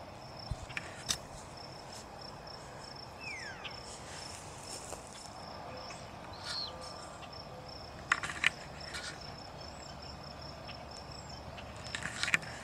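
A cricket chirping in a steady, even high-pitched pulse, with a couple of faint short whistles and a few sharp clicks, the loudest about eight seconds in and near the end.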